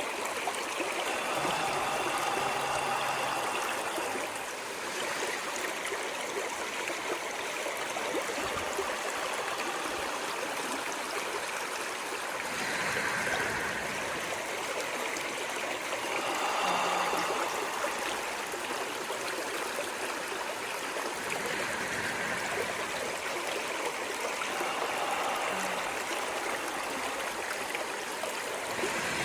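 Running water of a stream flowing steadily, an even rushing with gentle swells in level.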